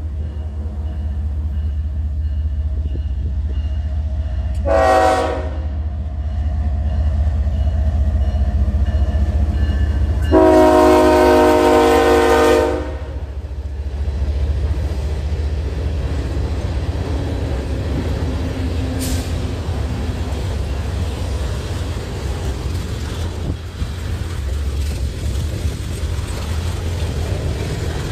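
Norfolk Southern freight train passing close by. The lead locomotive's chime air horn sounds a short blast about five seconds in and a long, loud blast from about ten to thirteen seconds, the close of a grade-crossing horn signal. Through the rest, the diesel locomotives and the freight cars rolling by make a steady heavy rumble.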